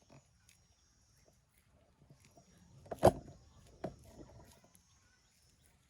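Hands working wet mud on a soil cooking stove, with a sharp slap about three seconds in and a smaller one just after.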